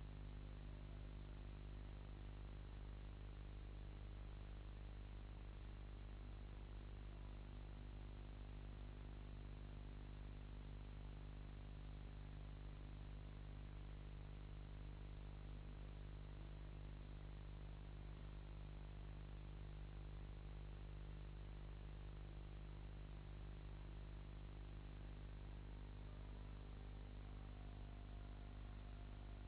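Steady low electrical hum and hiss with a faint high whine, with no sound from the filmed scene: the background noise of a silent film's transfer.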